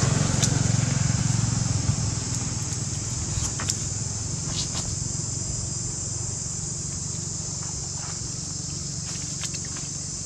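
Low engine-like rumble of a motor vehicle, slowly fading over the first several seconds, under a steady high-pitched hiss and a few faint clicks.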